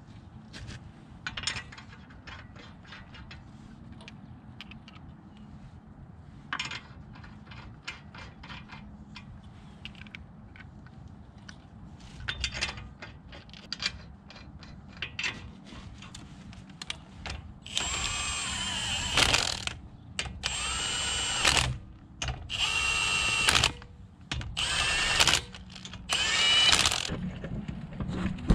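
Lug nuts being run onto a car wheel: a socket ratchet clicking in short runs, then a cordless power tool whirring in five separate bursts of about a second each, one per lug nut.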